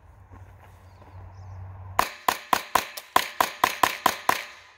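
Ruger Mark IV .22 LR pistol firing a rapid string of about eleven shots, roughly four a second, starting about two seconds in. The shots come without a break: the pistol is cycling each round of copper-plated ammunition.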